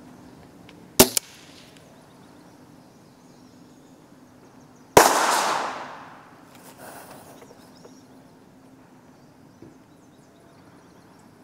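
Two gunshots from a Tippmann M4-22 semi-automatic .22 LR rifle: a sharp crack about a second in, and a louder bang with a long fading tail about five seconds in.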